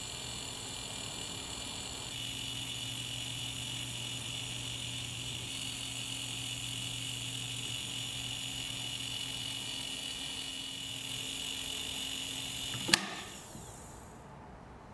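Small electric motors of a kinetic sculpture running, a steady whir with a steady whine on top. Near the end comes a single sharp click and the whir dies away within about a second as the motors stop.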